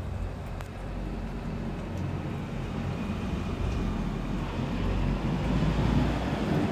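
A low rumble, like a vehicle passing, growing steadily louder and peaking near the end.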